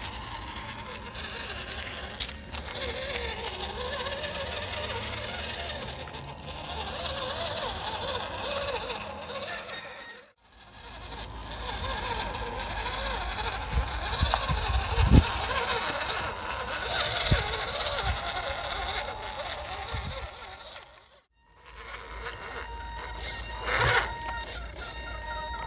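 Small electric RC crawler van whirring as it crawls over dirt and stones, with a few low knocks about halfway through and the sound dropping out briefly twice.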